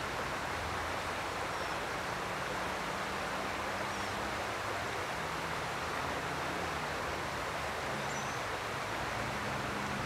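Small stream's riffle running steadily, an even rushing hiss of flowing water, with a faint low hum beneath.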